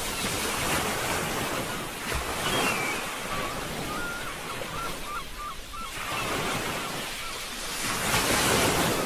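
Sea waves breaking and washing in, the surf noise swelling and falling back in surges every few seconds.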